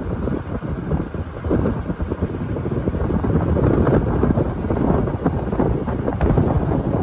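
Wind buffeting the microphone of a moving car, a loud gusty rush mixed with the car's road noise.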